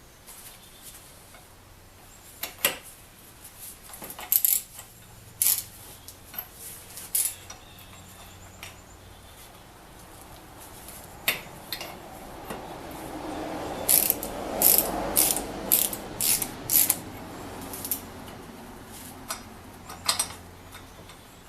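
Sharp metallic clicks and clinks of steel hardware and hand tools as bolts are fitted to a pipe vise's lower jaw and mounting plate. The clicks are scattered at first, then come in a quick run of about seven, roughly two a second, past the middle.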